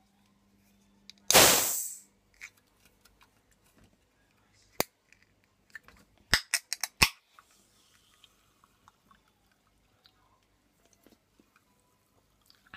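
Coca-Cola can's pull tab cracked open with a short fizzing hiss about a second in, followed by a handful of sharp clicks and taps from handling the can.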